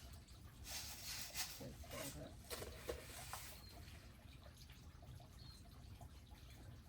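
Faint, brief chirps of small wild birds over a steady low outdoor rumble, with a stretch of rustling and a few light knocks in the first half.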